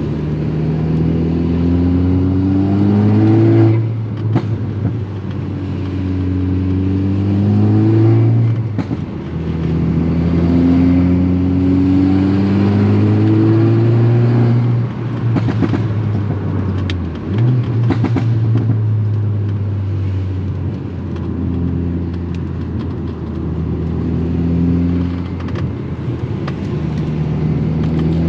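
Volkswagen Golf R MK6's turbocharged 2.0-litre four-cylinder engine, with an aftermarket turbo-back exhaust, pulling hard. The revs climb, drop sharply at an upshift or lift-off, and climb again, about six times.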